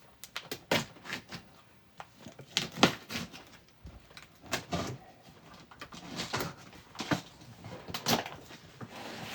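A cardboard shipping box being handled and opened: irregular knocks, taps and short scrapes of cardboard and tape.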